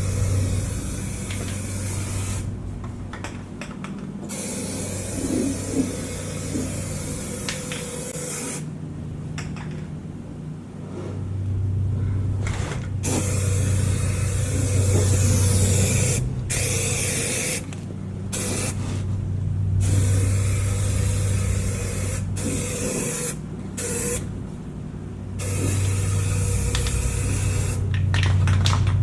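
Aerosol can of Rust-Oleum rubberized undercoating spraying onto a pickup truck's frame in bursts, stopping and starting many times as the coat goes on. A steady low hum runs underneath.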